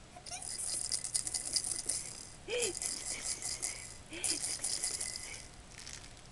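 Baby's toy rattle shaken in three bursts of dense, bright rattling, each lasting about a second or so.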